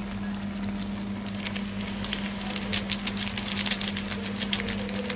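Sharp crackling as the plastic Maggi masala sachet is torn open and emptied into the pan of simmering noodles, starting about a second in and thickest in the middle, over a steady low hum.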